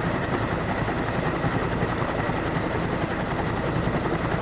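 Aircraft engine running steadily: a continuous rumbling noise with a thin high whine over it.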